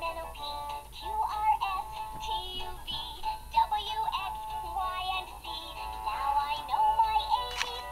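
An electronic children's learning toy playing a tinny tune with a synthesized singing voice.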